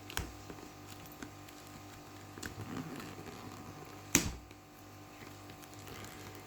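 Packaging being handled by hand: a few light clicks and taps, a short scraping about two and a half seconds in, and one louder knock about four seconds in, over a steady low hum.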